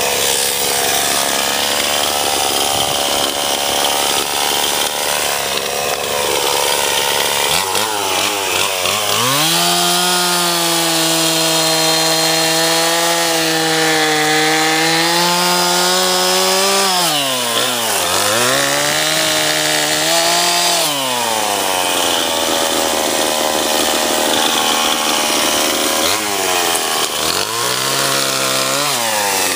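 Gasoline chainsaw idling, then revved up to high speed and held there for about eight seconds, dipping and revving up again before it drops back to idle. It revs up twice more near the end, cutting through a fallen tree limb.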